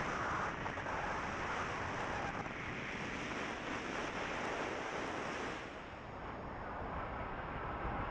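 Wind rushing over the camera's microphone on a moving motorbike, a steady noise with road and engine sound beneath it. It eases briefly about six seconds in, then picks up again.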